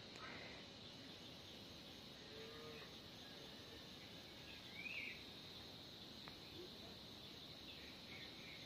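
Near silence: faint outdoor ambience with a steady high insect hum, and one short chirp about halfway through.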